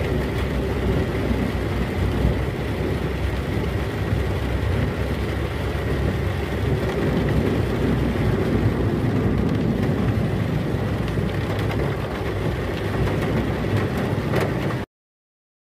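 Steady low rumble inside a car's cabin as it drives slowly on a rain-soaked road: engine and tyre noise on wet pavement. It cuts off suddenly near the end.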